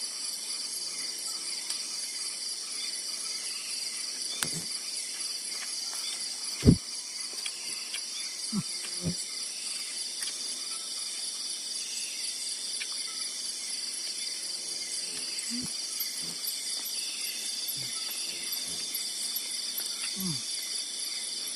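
Steady chorus of night insects, high and pulsing. Now and then comes a soft low knock, the loudest about seven seconds in.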